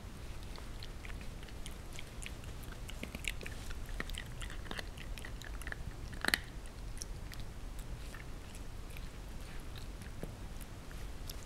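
Shiba Inu puppy chewing a crispy chew treat: a run of small, irregular crunches as she bites and picks at the crumbs, with one louder crunch about six seconds in.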